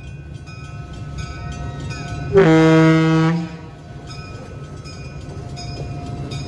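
A train horn sounds one blast about a second long, a little over two seconds in, over the steady low rumble of the train.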